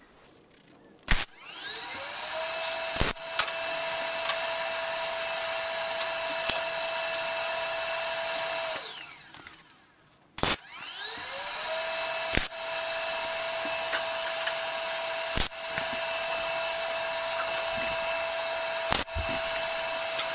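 An electric motor spins up with a rising whine, runs steadily for several seconds and winds down. It then spins up again and runs steadily. Sharp clicks are heard a few times while it runs.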